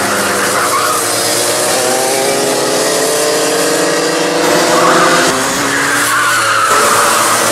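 Several two-stroke racing kart engines at full throttle, overlapping, their pitch rising as the karts accelerate out of a corner. The loudest pass comes about five seconds in.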